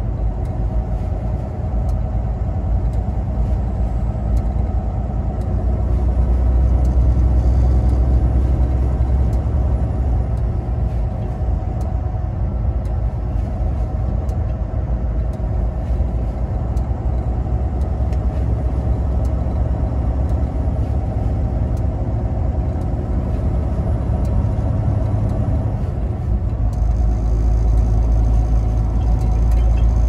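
Semi truck's diesel engine and tyres droning steadily from inside the cab while driving on a snow-covered highway, a little louder about a quarter of the way in and again near the end.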